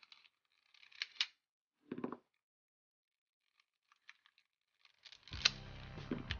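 Plastic clicks and taps of a 2x2 speedcube being handled and turned: a few sharp clicks about a second in, a duller knock near two seconds, then light ticks. Background music comes in about five seconds in.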